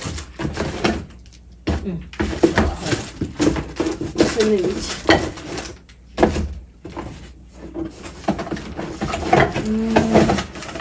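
Rummaging in a cardboard box: packaging rustling, and small household items clinking and knocking against each other as they are lifted out.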